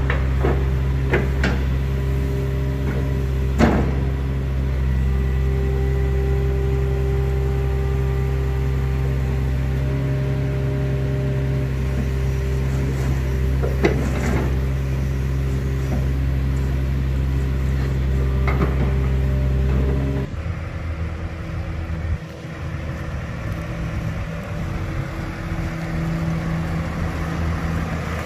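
Volvo EC220DL crawler excavator's diesel engine running at a steady pitch while the boom and bucket are worked, with a few sharp metallic clanks. About twenty seconds in, the engine sound drops abruptly and becomes quieter and rougher.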